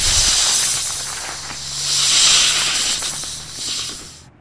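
Snake hiss sound effect: a long, loud hiss that swells twice and then cuts off suddenly near the end.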